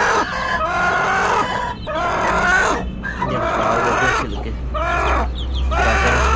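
Hen clucking in a series of drawn-out calls that rise and fall in pitch, about one a second, over a low steady hum.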